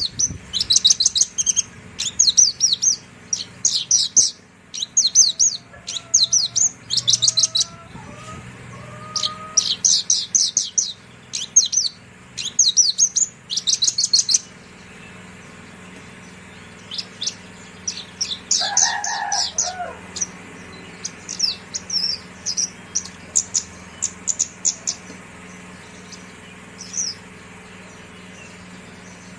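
Horsfield's bush lark (branjangan) singing quick, high trilled phrases one after another. About halfway through the song thins to scattered fainter notes, with one brief lower-pitched sound about two-thirds of the way in. A steady low hum runs underneath.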